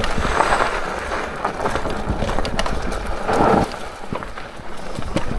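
Fat-tyre folding e-bike ridden over a rough dirt track: tyres crunching over stones and the bike rattling and knocking over bumps, a constant jumble of irregular clicks with two louder rushing swells, about half a second and three and a half seconds in.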